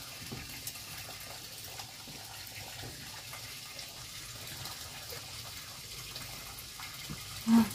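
Steady background hiss like running water, even throughout, with a few faint clicks; a brief voice sound comes just before the end.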